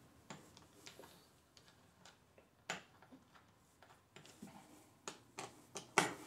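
Light, irregular clicks and taps of metal hardware being handled and turned by hand on a drum throne's backrest mount, with two sharper clicks, about two-thirds of a second in from the middle and near the end.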